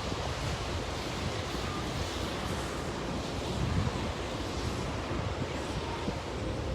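Wind blowing across the microphone: a steady rushing noise with uneven low buffeting.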